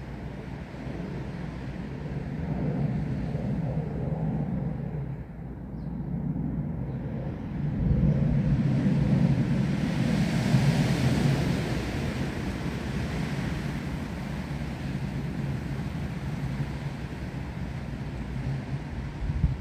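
Gusty wind with a low rumble, swelling about eight seconds in with more hiss as the gust rises through the trees, then easing back.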